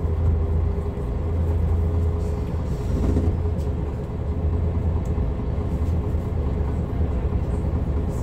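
Diesel engine of a MAN NL323F bus running with a steady low rumble and a faint steady whine, the sound of the bus driving along.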